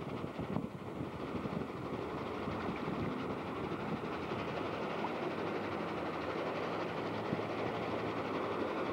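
A steady rumble with a faint low hum under it, from a running engine-driven vehicle.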